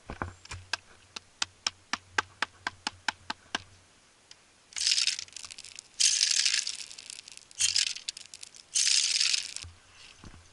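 A run of quick clicks, about four a second, then four short bursts of rattling hiss as feed is thrown and spills from the spinner at the bottom of a tripod game feeder.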